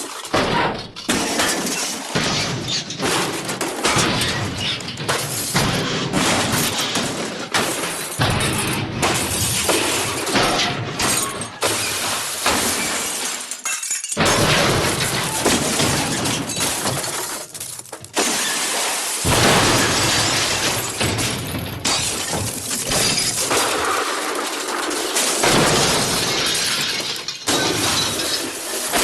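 The MGM Elephant Smash stock sound effect: layered crashing and shattering of glass and debris, played over and over in edited versions, with brief breaks about 14 and 18 seconds in.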